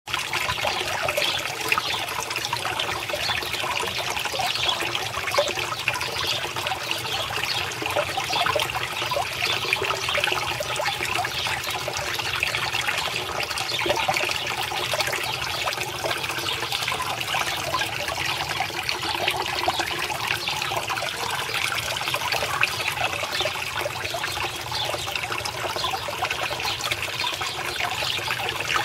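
Water trickling and splashing steadily into a small garden pond, a constant fizzy patter of falling water.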